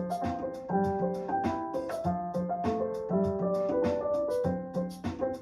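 Upbeat background music with a keyboard or piano melody over a steady drum beat.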